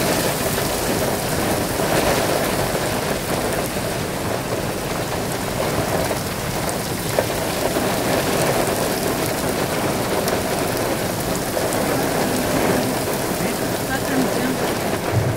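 Heavy rain pouring down steadily onto flooded pavement.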